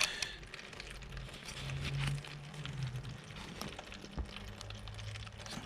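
Coolant trickling out of the motorcycle's drained cooling line into a container, a faint steady splashing with small knocks as the container is handled. A faint low hum sits under it for a second or so at a time.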